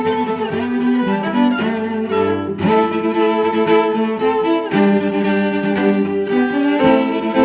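Background music played on bowed string instruments, violin and cello, in sustained notes that change every half second or so.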